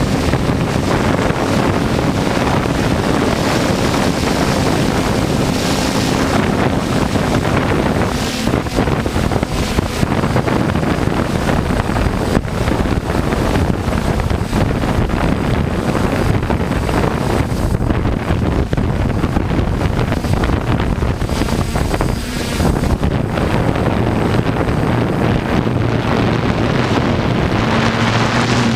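Strong gusty wind buffeting the microphone, loud and continuous, with the faint steady hum of a multirotor drone's motors underneath, clearest near the start and again near the end.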